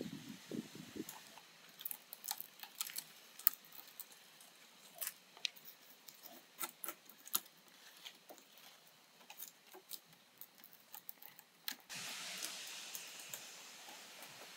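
Thin wire being twisted by hand around split-bamboo slats: irregular sharp clicks and taps of wire and bamboo. A steady hiss comes in near the end.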